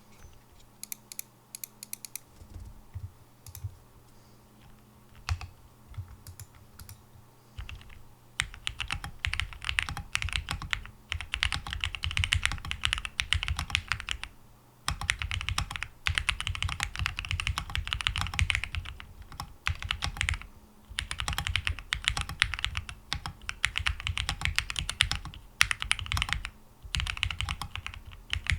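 Typing on a Percent Studio Luna75 mechanical keyboard with TTC Wild 42g switches, a polycarbonate plate, gasket mount, PCB and case foam, and EPBT PBT keycaps. A few scattered keystrokes for the first several seconds, then fast continuous typing broken by brief pauses.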